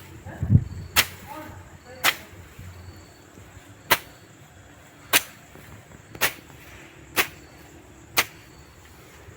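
A run of sharp chopping strikes, about one a second, with a duller thud about half a second in.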